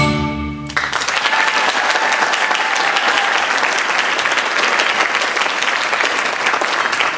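The last held chord of a song's accompaniment cuts off under a second in, then a theatre audience applauds steadily.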